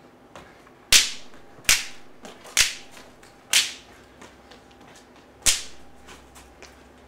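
Five loud, sharp cracks at uneven intervals, each ringing out briefly in the hall, with fainter clicks and taps between them.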